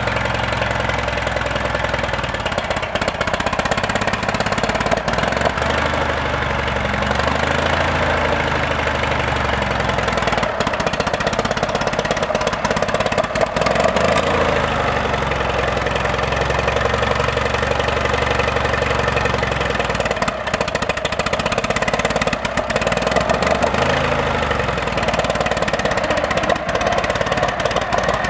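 Case VAC tractor's four-cylinder gasoline engine running steadily while the tractor is driven slowly, its speed rising and falling slightly a few times.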